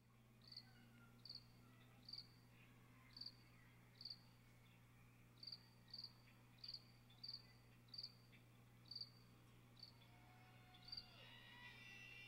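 Faint, short, high cricket-like chirps, about a dozen of them spaced unevenly roughly a second apart, over a steady low hum. Soft held instrument notes begin to fade in near the end.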